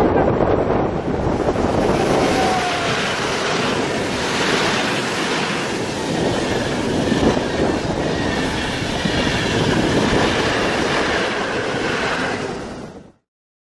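Passenger express hauled by an EU44 Husarz (Siemens Taurus) electric locomotive passing close at speed: a steady rush of wheels on rail and passing coaches, ending abruptly near the end.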